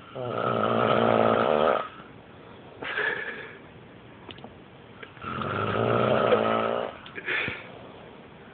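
A person snoring: two long, loud snores about five seconds apart, each followed by a shorter, quieter breath sound.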